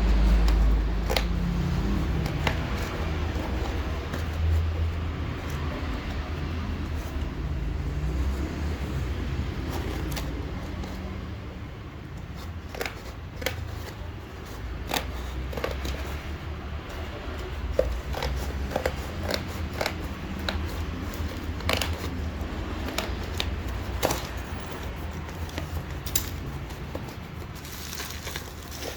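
Phone box and packaging being handled and opened: scattered clicks, scrapes and crinkles of cardboard and plastic, over a low rumble that fades after about ten seconds.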